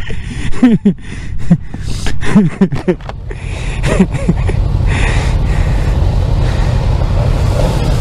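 Motorcycle engines idling at a standstill, with several quick throttle blips in the first three seconds and one more about four seconds in, each a short rise and fall in pitch, over a steady low engine rumble.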